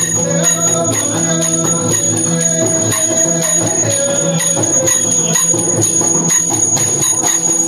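Yakshagana accompaniment: a steady drone and held melodic tones over a maddale drum beat struck about twice a second, with bells or small cymbals ringing throughout.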